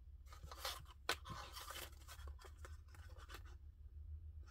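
Plastic transparency sheet and paper being handled, rustling and crinkling in short bursts with a sharp click about a second in, the rustles dying away after about three and a half seconds. A steady low hum lies under it.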